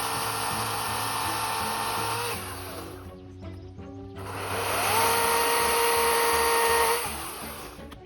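EGO cordless electric chainsaw running at full speed with a steady high whine; the trigger is let go about two and a half seconds in and the motor winds down, then it spins back up with a rising whine about four seconds in, holds, and is let go again near the end.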